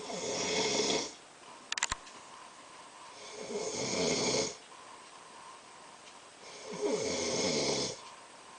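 A man snoring in his sleep: three loud snores about three and a half seconds apart, each lasting about a second and falling in pitch. A short click comes between the first and second snore.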